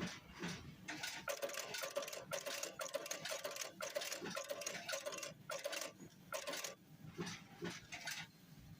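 Automatic eyelet buttonhole sewing machine stitching: a fast run of rapid stitches from about a second in to about six and a half seconds, then a few short bursts of stitching.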